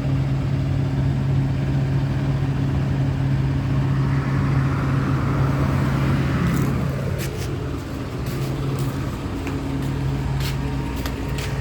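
City bus engine idling with a steady low hum, while a passing vehicle swells up and fades away about halfway through; several short sharp clicks follow near the end.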